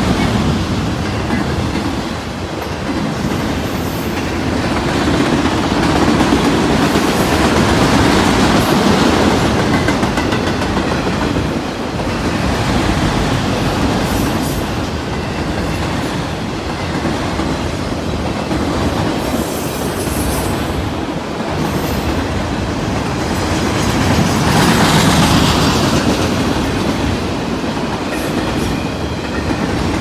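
Freight train of autorack cars rolling past close by: steel wheels running on the rails in a continuous rumble that swells and eases as the cars go by.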